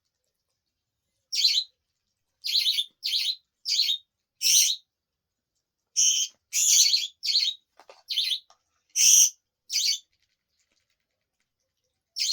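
A small pet parrot chirping: about a dozen short, high chirps in two runs, with a brief pause between them.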